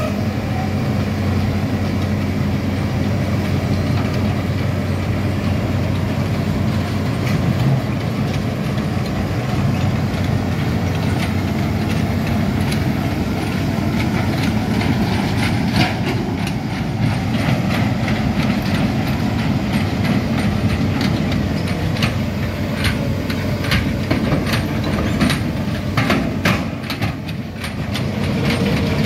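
Hitachi Zaxis 210F amphibious excavator travelling on its pontoon tracks: the diesel engine runs steadily under a continuous clanking of the steel track links. The sharp clacks grow thicker in the second half.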